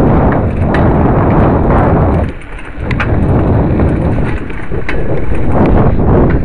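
Loud rumble of a bicycle rolling over pavement as picked up by a camera riding on it, with a few sharp clicks and rattling knocks and a brief dip in the noise about two and a half seconds in.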